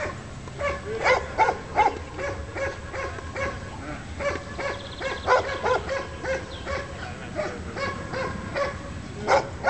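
Dog barking in a rapid, steady series of about two to three barks a second, a guard dog warning off the decoy who approaches the object it is guarding.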